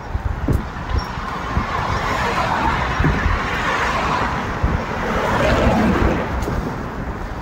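Wind buffeting the microphone of a moving bike, with street traffic; a passing vehicle swells in and fades out over a few seconds in the middle.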